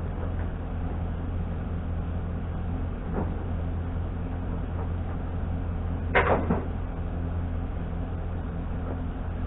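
A steady, low, engine-like drone. About six seconds in, a sharp knock is followed by a couple of quick smaller knocks.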